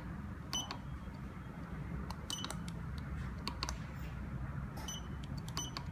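LA501 fingerprint door lock keypad beeping with each key press as a password is entered: several short, high beeps at uneven intervals over a low steady hum.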